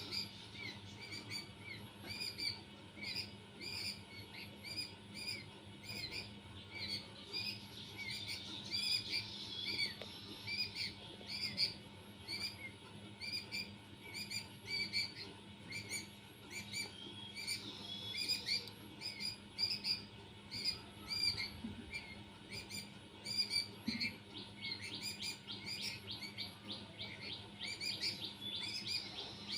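Birds chirping: short, repeated high calls, several a second, with a rapid trill near the end. A faint steady hum runs underneath.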